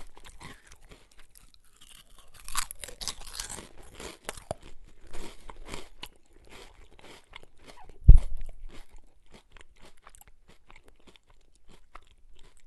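A person crunching and chewing crisp chips: rapid crackling crunches, with one loud crunching bite about eight seconds in, thinning to softer, sparser chewing near the end.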